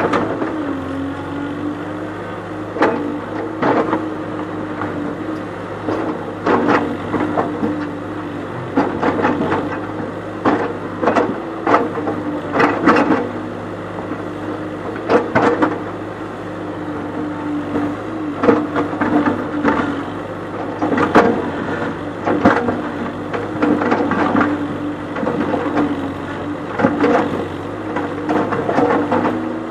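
JCB backhoe loader's diesel engine running steadily, with repeated irregular clunks and knocks as the backhoe bucket works against river boulders.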